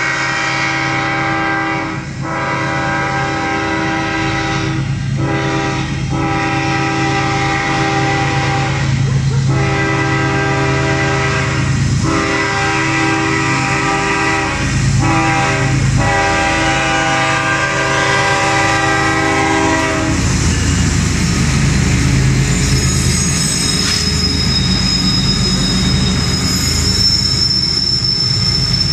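Diesel freight locomotive's air horn sounding a chord in a string of long blasts with short breaks as the train nears a road crossing; after about twenty seconds the horn stops and the locomotives' engines and the passing wagons rumble, with a high steady wheel squeal in the last few seconds.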